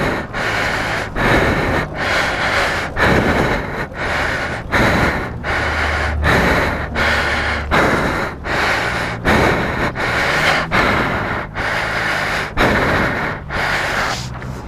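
Heavy, rhythmic breathing from a man exerting himself pushing a motorcycle, about one hard breath a second, loud on the microphone. A low rumble runs under it for a couple of seconds around the middle.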